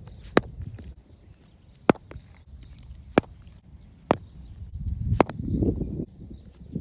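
A repaired cricket bat being tested against a cricket ball: a string of sharp knocks, about one a second, over a low rumbling background.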